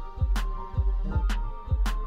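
Background music with a steady beat: deep kick drum and sharp snare hits, about two beats a second, under sustained keyboard notes.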